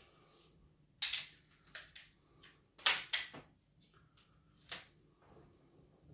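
Clicks and clatters of folding camp-cot leg assemblies, aluminium poles with plastic joints, being handled and set down: several sharp knocks, the loudest about three seconds in.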